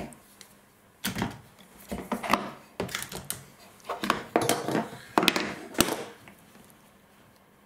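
Wooden mould frame and clamps being handled and taken apart: a string of knocks, clicks and rubbing, with a sharp knock shortly before the sounds stop.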